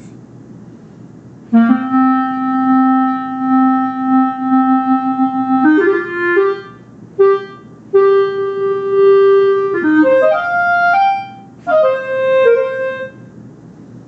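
Synthesized clarinet voice of the Songbird iPhone app, played in breath mode by blowing into the phone while fingering notes on the touchscreen. Starting about a second and a half in, it plays one long low held note, then a quick run of rising notes, another held note, and a short phrase of higher notes that steps down at the end.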